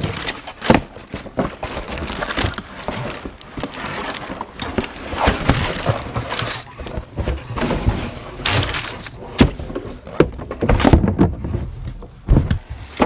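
Crumpled kraft packing paper rustling and crackling, with cardboard scraping and knocking, as a boxed frying pan is pulled out of a shipping carton. Irregular handling noise with frequent sharp knocks.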